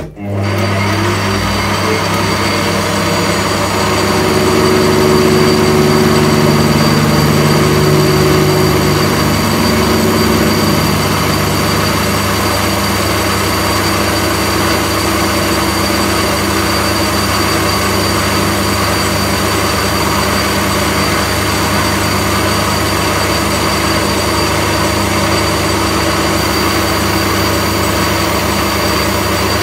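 Metal lathe starting suddenly and running, a steady low motor hum as the four-jaw chuck spins and the tool faces a square aluminium bar. It grows louder, with extra tones, for several seconds a few seconds in, then runs on steadily.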